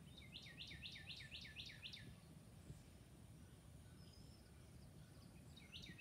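Faint birdsong: a bird sings a run of about seven quick down-slurred notes, roughly four a second, and starts the same run again near the end.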